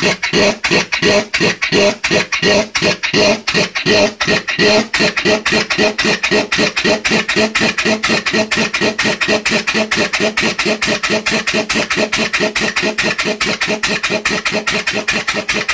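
A Briggs & Stratton single-cylinder engine converted to steam operation runs on compressed air, with a rhythmic chuff of exhaust on every stroke. The puffs pick up speed about five seconds in, from roughly three to about five a second.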